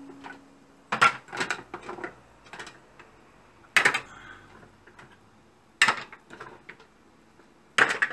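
Steamed green-lipped mussel shells clacking against stainless steel as they are lifted from a colander and dropped into a metal bowl one at a time. There are sharp clacks about every two seconds, each ringing briefly.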